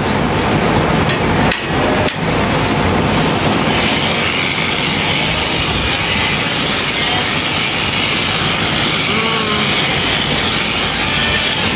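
Electric sheep shears running steadily through the fleece, with two brief drops about a second and a half and two seconds in.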